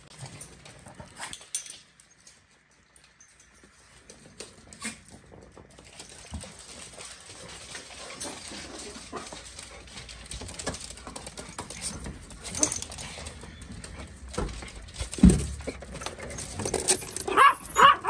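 Dogs whimpering, with scattered clicks and knocks as they move about, and a few short, high yelps near the end.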